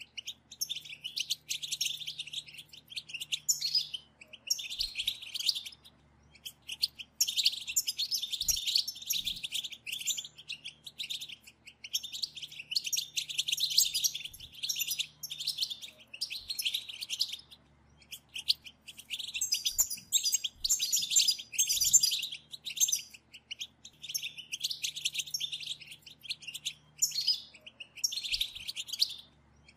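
A group of European goldfinches chattering together: rapid, high twittering calls that come in bouts of a few seconds with short pauses between them.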